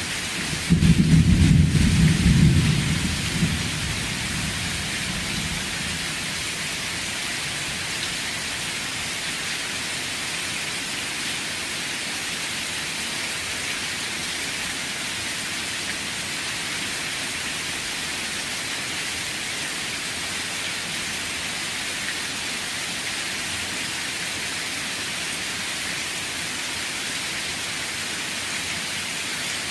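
Steady rain, with a loud clap of thunder about a second in that rumbles away over the next few seconds.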